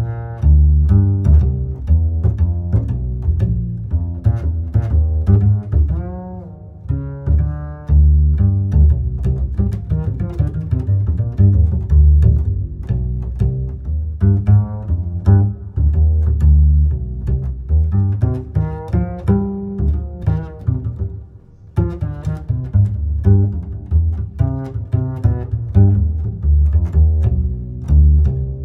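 Background music with a prominent plucked bass line and string-like melody.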